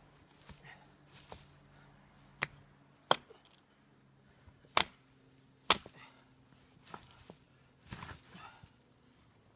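Hatchet chopping into the trunk and limbs of a felled conifer: a string of sharp, irregular chops, four of them loud, with softer knocks in between.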